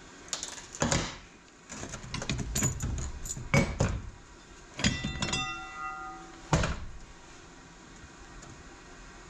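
Steel transmission parts clanking and clattering as they are handled and set down during a teardown. A part rings briefly after a knock about five seconds in, and a sharp single clank follows near seven seconds.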